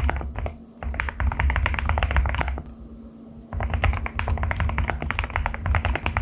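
Fast typing on a Qwertykeys QK75 custom mechanical keyboard with Haimu Crystal Blossom switches: a dense run of keystrokes that stops for about a second near the middle, then resumes.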